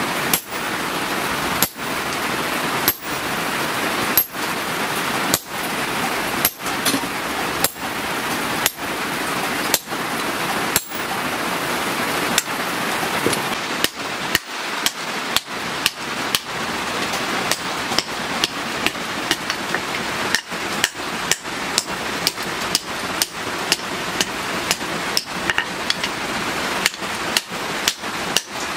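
Hand-hammer blows on red-hot leaf-spring steel on a post anvil, forging the axe head's eye round. Single sharp strikes come about every second and a quarter, then quicken to about one and a half a second about halfway through, over a steady hiss.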